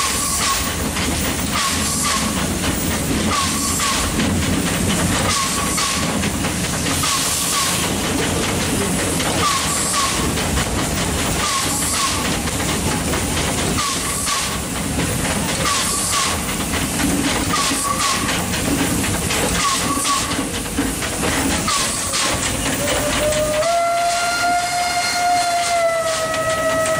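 Small metre-gauge steam locomotive working at low speed, heard from its cab: a steady steam hiss with rhythmic exhaust chuffs and a short squeak repeating about once a second. Near the end its steam whistle sounds, one long steady blast.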